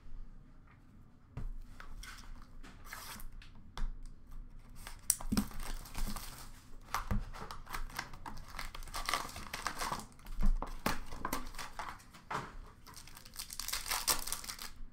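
Hockey card pack wrappers being torn open and crinkled by hand, in a string of irregular rips and crackles that grow busier about five seconds in.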